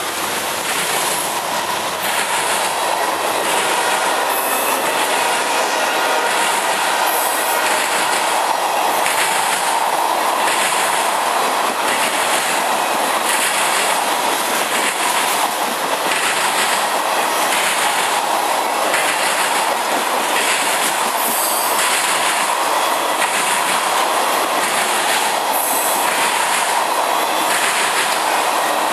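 Freight train of tank cars rolling past close by: a steady rush of steel wheels on rail, with repeated clacks as the wheel sets cross rail joints.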